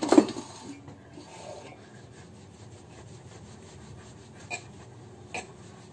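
Palms rolling a log of soft semolina dough back and forth on a marble board, a faint steady rubbing with two light taps near the end. Right at the start there is a short knock from the steel bowl and plate covering the rest of the dough.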